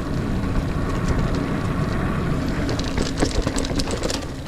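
Niner Air 9 RDO 29er mountain bike riding over dirt singletrack: a steady rumble of tyres and wind on the microphone, with bursts of rattling and clicking from the bike over rough ground about three seconds in.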